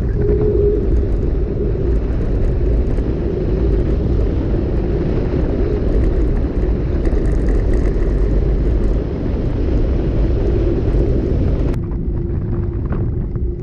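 Mountain bike rolling fast down an asphalt road, with wind rushing over the GoPro microphone and tyre noise, a loud steady rush with a low hum. About twelve seconds in, the hiss drops away abruptly, leaving the lower rumble and hum.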